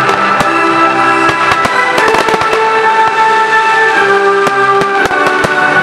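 Aerial firework shells bursting and crackling in quick succession over loud film-theme music with long held notes.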